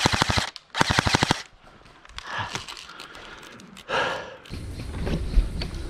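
Airsoft rifle firing in rapid full-auto bursts: one burst ends about half a second in, and a second short burst follows a moment later.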